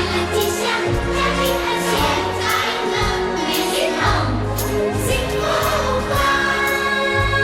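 Recorded music with a steady beat, a bass line and singing.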